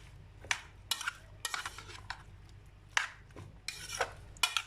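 A utensil scraping and clinking against a cooking dish in short, irregular strokes as sliced potatoes in tomato sauce are stirred and spread out.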